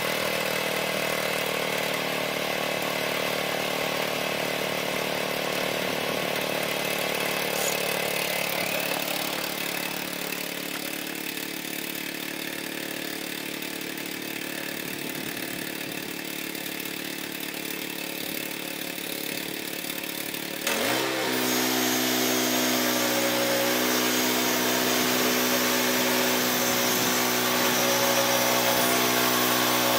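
Woodland Mills HM122 portable band sawmill's gas engine running steadily. It eases off somewhat about a third of the way through, then about two-thirds through revs up sharply to a louder, higher, steady speed.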